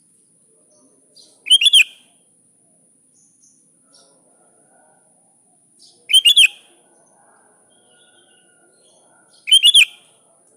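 Sooty-headed bulbul giving three short, loud, bubbling calls, each a quick run of a few notes about half a second long, spaced a few seconds apart: calling out to a rival.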